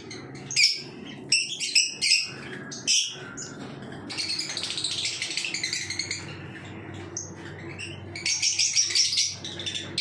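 A flock of caged lovebirds calling: many short, high chirps that thicken into continuous chatter in the middle, then a quick run of calls near the end.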